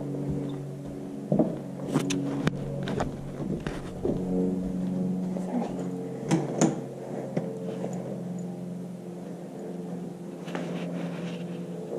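Footsteps climbing carpeted stairs and walking across carpeted floors, with a few scattered knocks and thuds, over a steady low hum.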